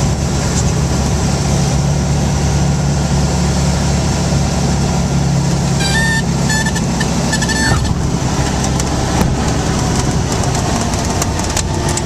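Cessna 210's six-cylinder engine and propeller droning steadily at reduced power, heard inside the cabin while landing. About six seconds in, a high warning tone sounds in short broken pieces for under two seconds as the nose comes up in the flare: the stall warning horn, the sign that the wing is near the stall just before touchdown.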